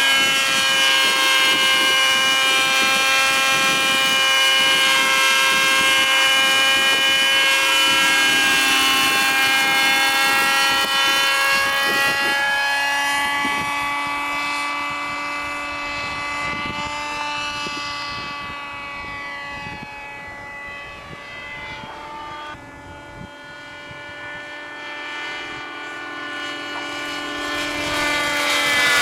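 Hirobo Shuttle RC model helicopter's OS 37 glow engine and rotor running in flight, a steady high-pitched engine whine. It fades for several seconds past the middle, dipping in pitch, then grows loud again near the end.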